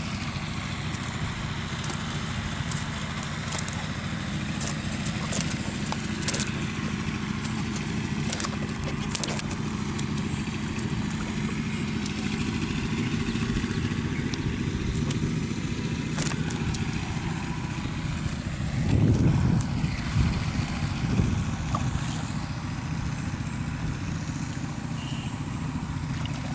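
A small engine running steadily at an even pitch, with scattered clicks and a louder, muffled knock about nineteen seconds in.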